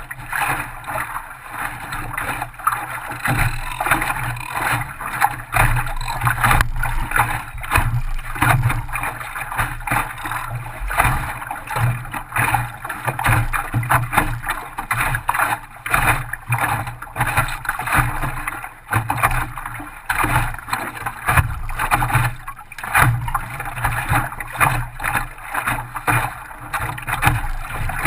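Water rushing and slapping against the hull of an Optimist sailing dinghy moving through a chop, an uneven wash with frequent small splashes.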